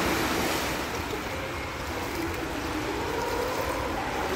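Splash of a jump into a swimming pool dying away at the start, then steady sloshing of water in an echoing indoor pool hall as the swimmer surfaces and swims.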